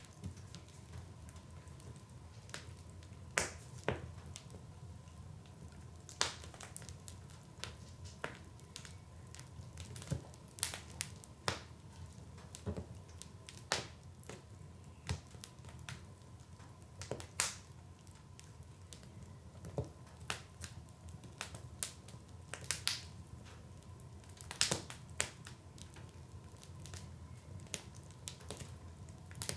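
Wood fire burning in a fireplace: irregular sharp crackles and pops, a few every second or two, over a low steady rumble of the flames.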